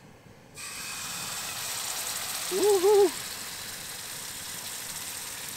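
Jetboil gas stove burning under a frying pan: a steady hiss that starts abruptly about half a second in and holds. About halfway through, a person briefly hums two notes.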